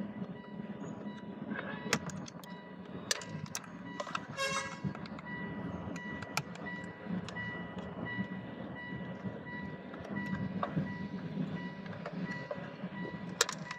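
Scattered sharp clicks and taps of a screwdriver and the plastic trim of a push-button engine start switch being unscrewed and pried apart, over a steady low hum. A brief tone sounds once about four and a half seconds in.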